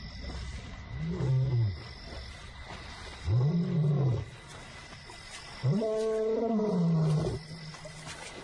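A male lion roaring, a contact call to a missing companion. Three calls, each rising and then falling in pitch, come one after another, each louder and longer than the last; the third is the longest and loudest.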